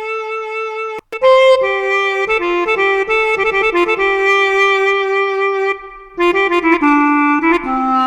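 Sampled Arabian clarinet patch from a SoundFont played as a reedy melody of held and ornamented notes. It breaks off briefly about a second in and again near six seconds, then steps down in pitch near the end.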